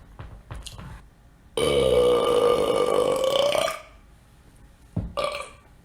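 A man's long, loud burp lasting about two seconds, holding a fairly steady pitch.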